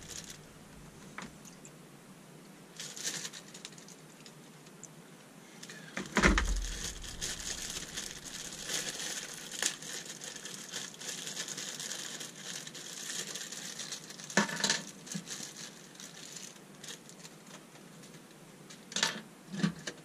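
Plastic packaging crinkling and rustling as small plumbing parts are unwrapped and handled, with a few knocks. The rustling starts with a thump about six seconds in and runs for several seconds.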